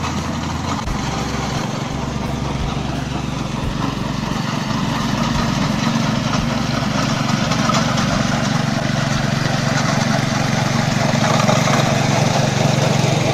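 SAAM-GC102 grain collector running on its small single-cylinder petrol engine: a steady engine drone with a rushing, hissing noise over it as the machine sweeps up dried cloves from the drying floor. It grows a little louder toward the end.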